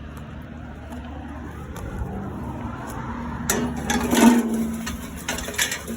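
Vehicle running with a steady low hum, then about three and a half seconds in a loud burst of clattering and knocking, loudest a little after four seconds, followed by a few more sharp knocks near the end.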